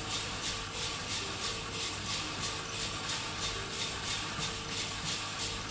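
Skywalker drum coffee roaster running early in a roast: steady fan and drum-motor hum under a hiss of beans tumbling in the rotating drum, pulsing rapidly and evenly.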